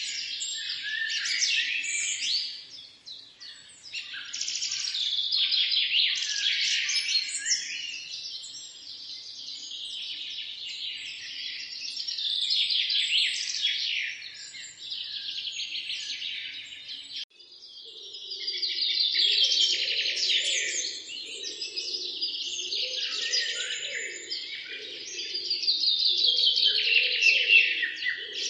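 Many small birds chirping and twittering at once, a dense overlapping chorus of quick high notes. After a brief dip about two-thirds of the way through, a lower, rougher sound joins beneath the chirping.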